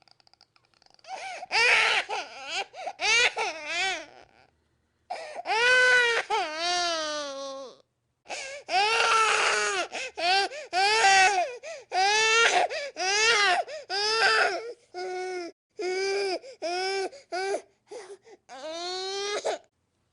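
Infant crying: a string of high-pitched wails, each under a second to about a second long, broken by short gaps for breath, beginning about a second in.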